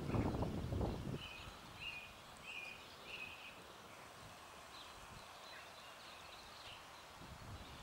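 Outdoor field ambience: a low rumble buffets the microphone for about the first second, then a bird calls four short, evenly spaced high notes, followed by fainter scattered bird calls.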